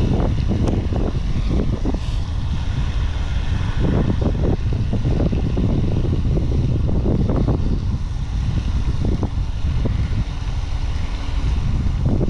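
Strong wind buffeting the microphone, a loud low rumble that swells in gusts every few seconds.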